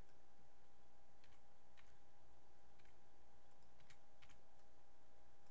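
A handful of faint, irregularly spaced clicks from a computer mouse and keyboard being used at a desk, over a steady background hum.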